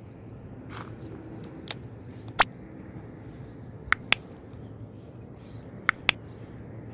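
Mouse-click sound effects of a subscribe-button animation: a quick double click about four seconds in and another about two seconds later, over a steady low outdoor hiss. A single, louder sharp click comes earlier, about two and a half seconds in.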